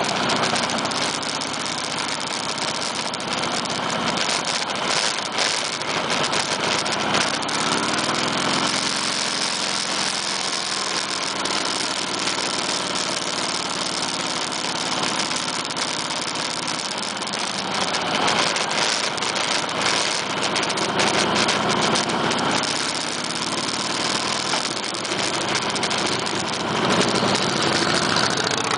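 Motorcycle engines running at low road speed, the revs rising and falling a few times, under a steady rush of noise.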